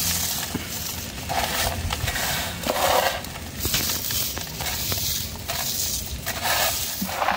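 Crisp deep-fried onion shreds being crushed and crumbled by a gloved hand on a steel plate: a dry crackling crunch that comes in repeated bursts about once a second.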